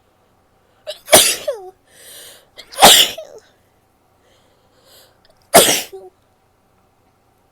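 A woman sneezing three times, each sneeze loud and sudden and trailing off in a short falling bit of voice, with softer breathing sounds between them.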